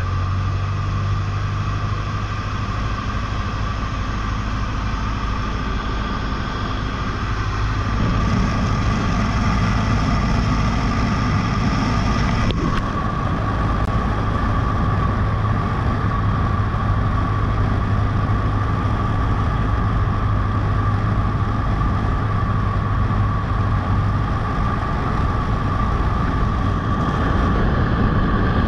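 Cessna 152's Lycoming O-235 four-cylinder engine and propeller running steadily in flight, with airflow noise, on the approach to landing. About eight seconds in the sound grows slightly louder and rougher, and the low hum fades out near the end.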